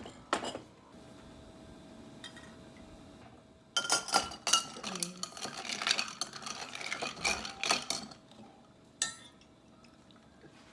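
Utensils clinking and scraping against dishes, with a dense run of sharp ringing clinks from about four seconds in to about eight seconds.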